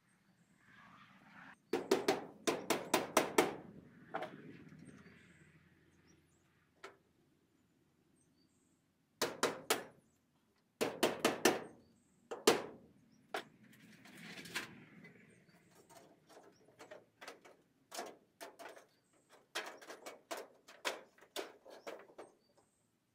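Hammering in quick bursts of sharp knocks, about five a second, stopping and starting, while metal soffit is fastened under the barn's gable eave.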